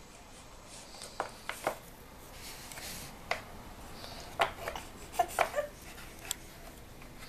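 Wooden peg-puzzle pieces knocking against the wooden puzzle board as a toddler works a piece into its slot: a scatter of light, irregular clicks and taps.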